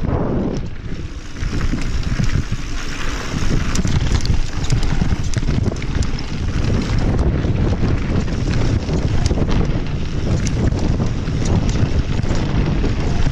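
Mountain bike descending a rough dirt trail, heard from a handlebar-mounted camera: steady wind buffeting on the microphone and tyre rumble over dirt and stones, with the bike rattling in many sharp clicks and knocks over the bumps.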